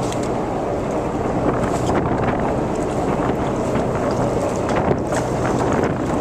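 A boat's engine running steadily with a low hum, under wind buffeting the microphone.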